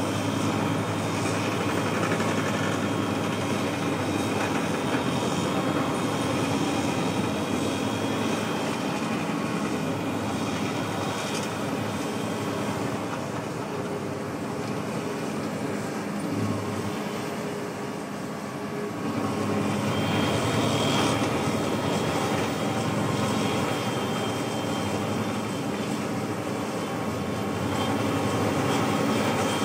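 Tractor engine working hard under load to drive a rear-mounted stone crusher, which grinds rock into the farm track. A steady heavy machine drone that eases a little around the middle, then picks up again.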